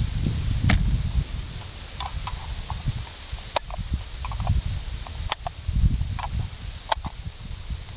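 Scattered sharp clicks and knocks of a rifle and its magazines being handled, four louder ones a second or two apart, over a low handling rumble. Insects chirp steadily in the background.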